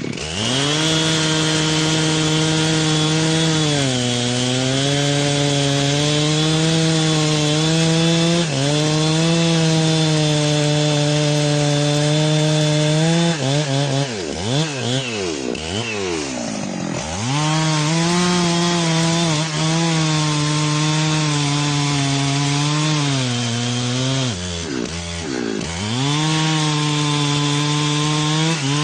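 Gasoline chainsaw running at high revs while cutting wood, its engine pitch sagging under load in the cut and recovering. About halfway through it eases off and revs up and down several times before settling back to full speed, with another brief dip near the end.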